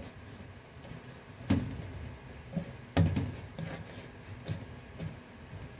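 A stainless steel mixing bowl scraping and knocking against a wooden board as a heavy raisin bread dough is worked out of it onto the board, with two dull knocks about a second and a half and three seconds in and lighter taps after.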